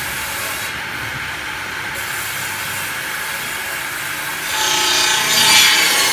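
Wood-cutting saw running steadily, then cutting into wood from about four and a half seconds in, which makes it louder and adds a pitched saw tone.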